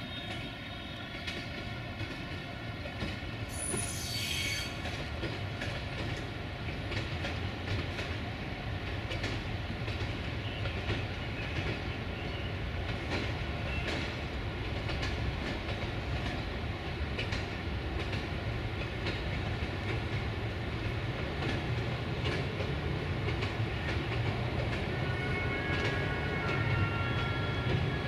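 Romanian 060-EA1 Co-Co electric locomotive moving slowly on a shunting move. Its wheels click over rail joints and points under a steady machinery hum. There is a brief high screech about four seconds in, and the sound grows slowly louder as it comes closer.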